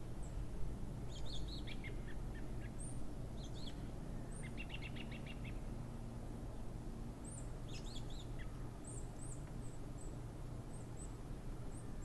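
Birds chirping and singing: short high chirps scattered throughout, a few falling song phrases, and a rapid trill about four to five seconds in, over a steady low rumble.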